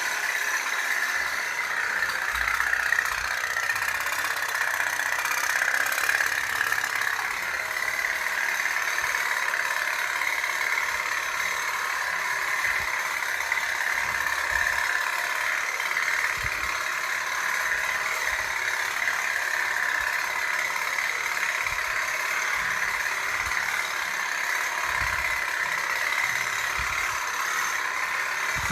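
Toy pop-pop boat running, its boiler putt-putting in a rapid, steady rattle.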